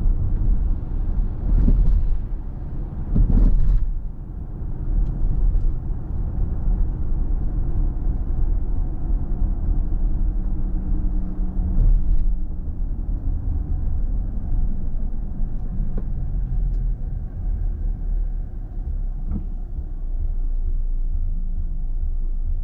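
Steady low rumble of a car driving on city streets, road and engine noise, with two louder swells in the first few seconds.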